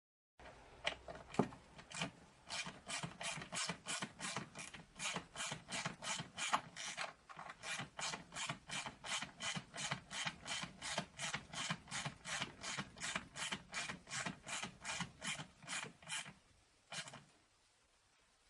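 Hand ratchet clicking in steady back-and-forth strokes, about three a second, tightening a bolt. It stops a couple of seconds before the end.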